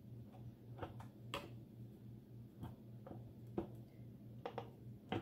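Faint, irregular clicks and taps of a butter knife working against a plastic egg container as it pries at frozen olive-oil-and-arugula cubes that are stuck fast.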